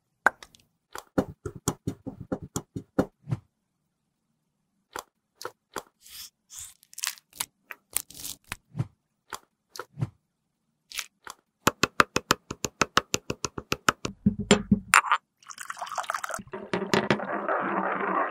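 Small rubbery animal-shaped toys clacking one after another into a stone mortar, with a pause partway through. Then a stone pestle pounds them rapidly, about six strikes a second, and after a heavy thud grinds them with a dense crunching noise near the end.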